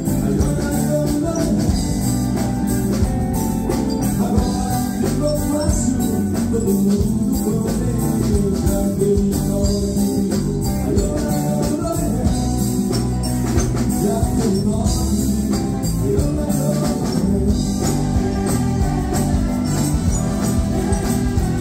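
Live military band music: a wind band with electric guitars playing a song at a steady beat.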